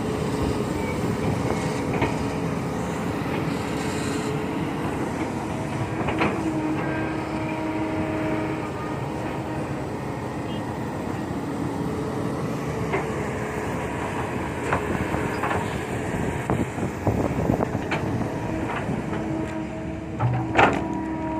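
Heavy diesel machinery running steadily at a dumping site, dump trucks and an excavator, with a sustained low engine hum and scattered knocks and clanks.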